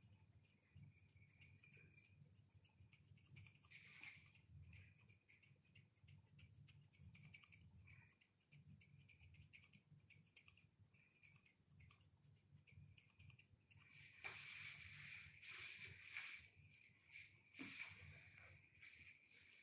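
Grooming shears snipping quickly and continually through a toy poodle's coat, a fast even run of crisp metal-on-metal cuts with a few short pauses.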